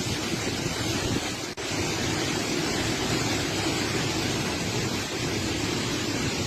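Steady noise of strong cyclone wind buffeting the microphone, cut off for an instant about a second and a half in.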